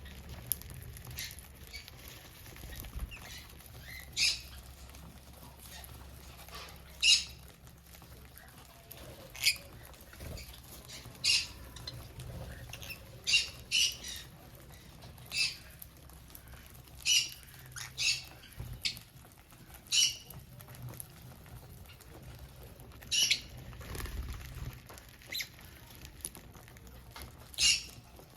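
Budgerigars giving short, sharp high-pitched chirps and squawks, one every second or two, some in quick runs of two or three.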